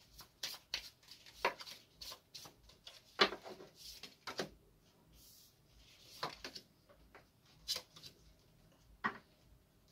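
Tarot cards being handled on a table: irregular light taps and clicks as cards are drawn, turned and laid down, with a couple of short swishes of cards sliding.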